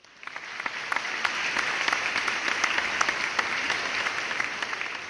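Crowd applause, many hands clapping in a dense, even patter that fades in over the first half second.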